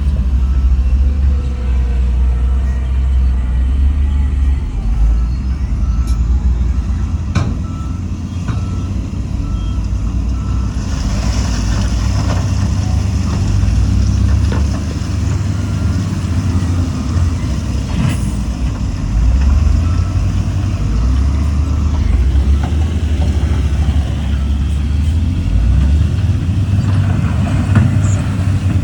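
Heavy diesel earthmoving machinery, a dump truck and a bulldozer, running steadily with a deep engine drone. A truck's reversing beeper sounds repeatedly in the first part and briefly again near the middle, and a hiss lasts several seconds about halfway through, along with a few sharp knocks.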